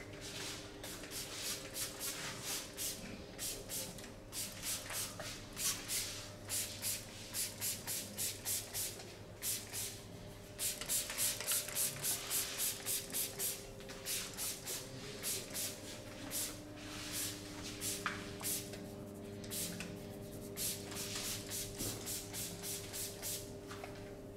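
Hands rubbing and stroking over skin in a massage: quick swishing strokes, about two a second, louder for a stretch in the middle, over a faint steady hum.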